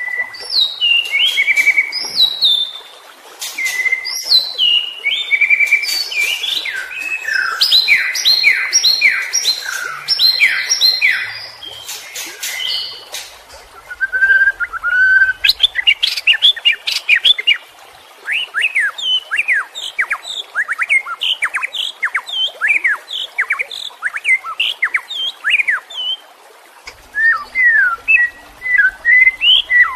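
White-rumped shama (murai batu) singing a loud, varied agitated ('ngamuk') song. It opens with clear whistles, falling glides and sharp clicks, then switches to long rapid runs of quick downward-sweeping notes with brief pauses.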